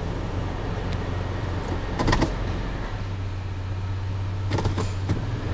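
Toyota FJ Cruiser's 4.0-litre V6 idling steadily after a remote start, its low hum a little stronger from about three seconds in. Short clusters of clicks and knocks come about two seconds in and again near the end.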